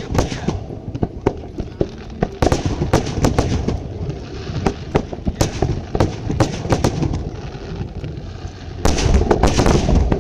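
Aerial fireworks display: many irregular bangs from shells bursting overhead, thickening into a dense, louder barrage near the end.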